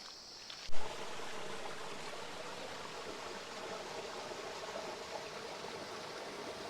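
River water rushing steadily over rocks in a rainforest gorge. Before it, a brief high insect buzz is cut off by a short thump about a second in.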